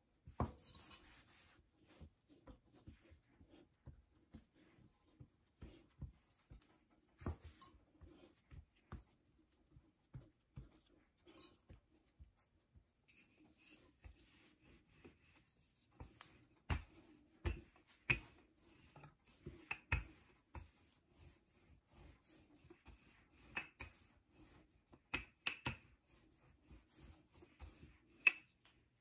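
Light, irregular taps, knocks and rubbing of hands patting dough and a wooden rolling pin rolling it out on a silicone baking mat, with a cluster of louder knocks in the second half.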